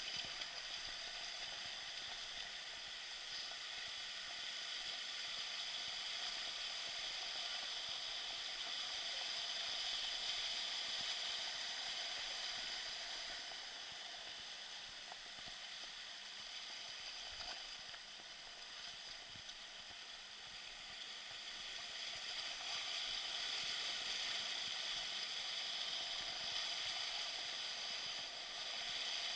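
Steady rushing hiss of a flowing stream, swelling and fading slowly.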